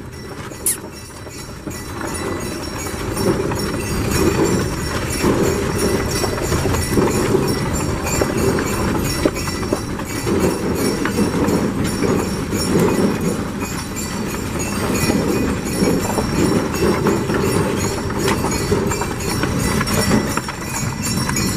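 Pair of draft horses trotting on a dirt lane, hooves clip-clopping amid the steady rattle of the wagon's wheels and harness; it grows louder about two seconds in.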